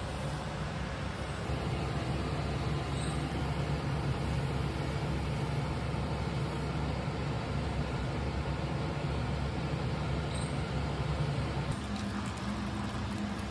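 Steady low rumble with a hum running under it; the hum steps up in pitch near the end.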